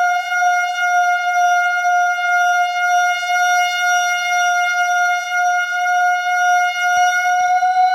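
A steady, sustained drone tone held at one pitch, rich in overtones and slightly wavering, used as an eerie "dead zone" sound effect.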